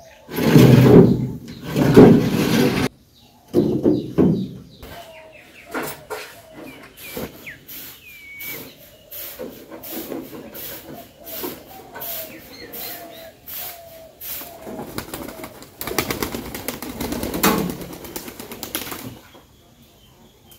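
Domestic pigeons cooing in a wooden pigeon house, short calls repeating about once a second, with small birds chirping now and then. Loud bursts of rustling and knocking near the start and again near the end.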